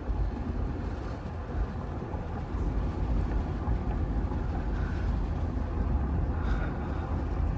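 Steady road and engine rumble heard from inside the cabin of a 1991 Mercedes-Benz R129 SL as it drives along.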